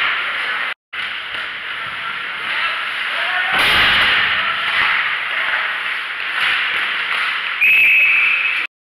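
Ice hockey rink sound heard from the stands: skates and sticks knocking and scraping over a steady arena hiss, with the sound dropping out briefly twice. Near the end a referee's whistle blows one steady blast of about a second, stopping play.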